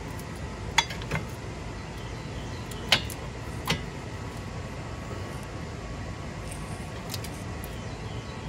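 A few sharp metal clinks as a front brake caliper with new pads is handled and fitted over the rotor, the loudest about a second in and about three seconds in, over a steady low background rumble.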